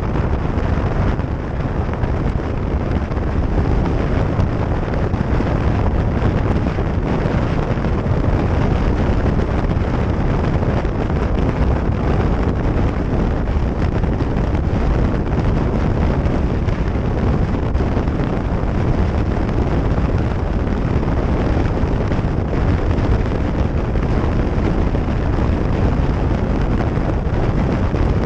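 Wind rushing over the microphone of a motorcycle riding at motorway speed, with the bike's running and road noise underneath: a steady, dense rush heaviest in the low end.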